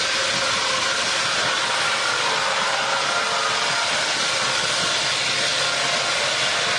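Engine of a wood-processing machine running steadily, an even, unchanging noise.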